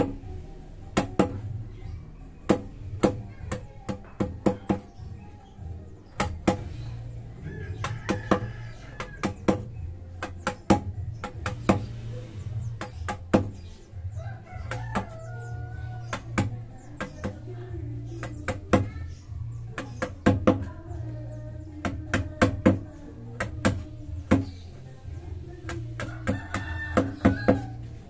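Steel chisel chipping at a natural-stone relief panel: sharp, irregular clicks, often several in quick succession.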